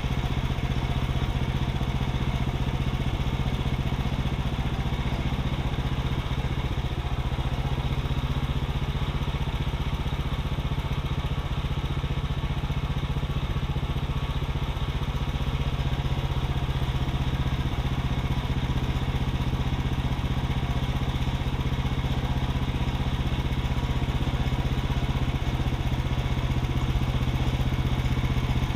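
Gas engine of a Woodland Mills HM126 portable bandsaw mill running steadily as the saw head travels along a Douglas fir log, the band blade cutting.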